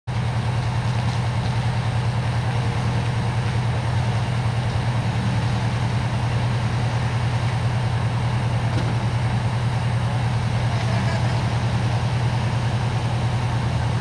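Fire truck's diesel engine idling steadily, a loud, even low rumble.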